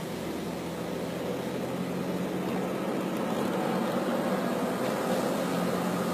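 Car driving, heard from inside the cabin: steady engine hum and road noise, growing gradually louder.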